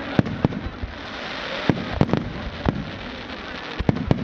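Fireworks display: a run of sharp, irregularly spaced firework bangs, three in quick succession near the end, over a steady hiss.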